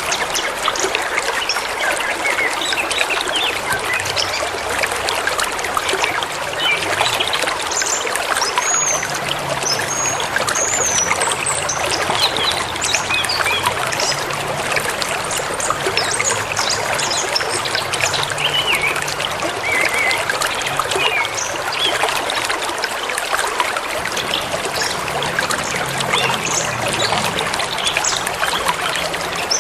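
A river running over stones, with a steady rushing and trickling of water, while small birds chirp and sing in short calls now and then over it.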